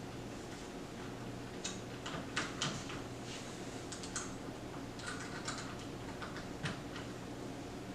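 Scattered light clicks and taps of small metal hardware and an Allen wrench being handled while mounting a crossbow's quiver bracket, irregular and a few per second, over a low steady hum.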